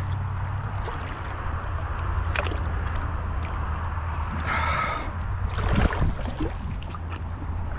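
Shallow creek water gurgling and sloshing under a steady low rumble. Short splashes come near the end as a magnet on a rope is dragged through the water.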